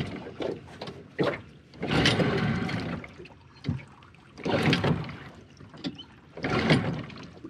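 Tohatsu 9.8 two-stroke outboard being pull-started cold with the choke out: several recoil-starter pulls about every two seconds, the engine turning over and firing once but not running. It is running too rich on choke.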